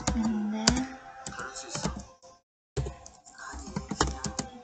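Typing on a computer keyboard: a quick, uneven run of key clicks as a line of code is typed. A short low hum sounds near the start, and all sound drops out briefly about halfway through.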